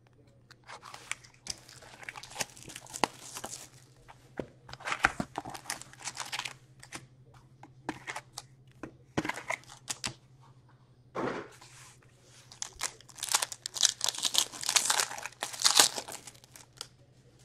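Hands unwrapping a Metal Universe hockey card box: the plastic shrink wrap is slit with a box cutter and pulled off with scratchy rustles, and the cardboard lid is opened. Near the end, a foil card pack is torn open with a dense crinkling.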